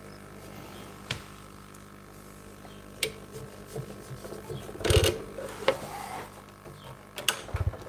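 Craftsman 22-inch scroll saw running, its blade cutting a small piece of wood with a steady hum and rasp. A few knocks of the workpiece come through, the loudest about five seconds in.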